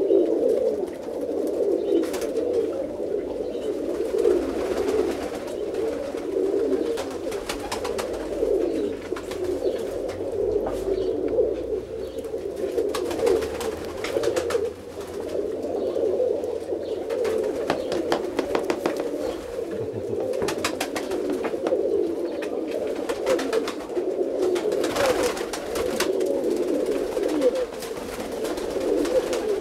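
A flock of domestic tumbler pigeons cooing without pause, many low coos overlapping, with occasional sharp clicks.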